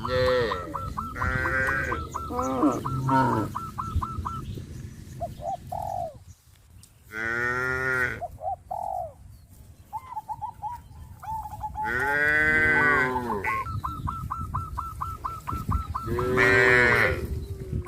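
Cattle mooing: several long, drawn-out moos, a few in quick succession at the start and then single calls every few seconds. Between them a bird gives a rapid, even series of short chirps, near the start and again near the end.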